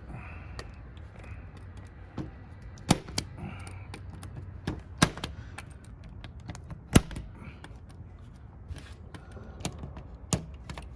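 Punch-down tool snapping as it seats and trims Cat6 wires in a keystone jack's slots: sharp clicks, the three loudest about two seconds apart, with lighter clicks between.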